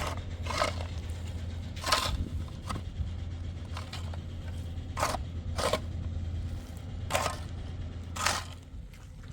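A series of short, uneven crunching scrapes, about eight in all, over a steady low hum that fades near the end.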